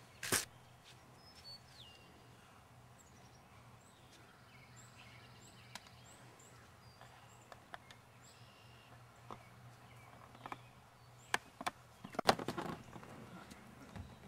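Quiet outdoor ambience with small birds chirping. A single sharp knock comes just after the start, and a cluster of knocks and clatter comes about twelve seconds in.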